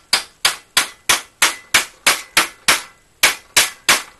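Hammer rapidly striking the end of a PVC pipe held in a vise, sharp blows about three a second with a brief break about three seconds in, driving the PVC down flush over the CPVC tube inside it.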